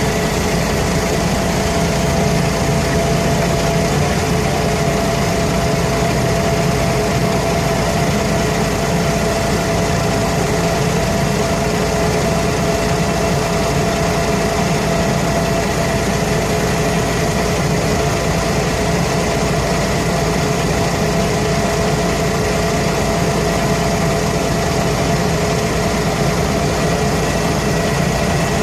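Mercedes-Benz O345K articulated bus's OM447hLA straight-six turbo diesel running steadily, its sound carrying a burst exhaust. A few steady whining tones sit over the constant engine drone.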